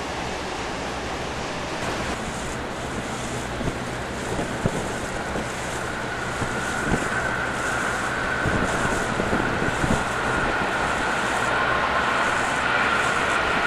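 Freight train hauled by a DB Class 140 electric locomotive, running along the far bank of the river: a steady rumble under wind noise, growing louder as it comes on, with a high steady whine that rises in the second half.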